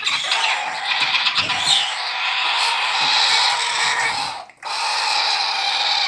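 Baby galah cockatoos giving their raspy, hissing food-begging calls while being syringe-fed. The steady rasp breaks off briefly about four and a half seconds in, then starts again.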